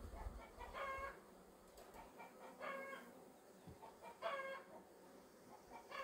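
A cat meowing over and over, one short call about every two seconds.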